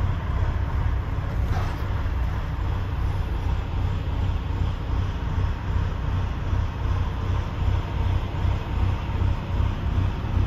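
DAF CF85's 410 bhp turbocharged Euro 5 diesel, a straight-six, idling steadily with a low, pulsing rumble, heard from inside the cab.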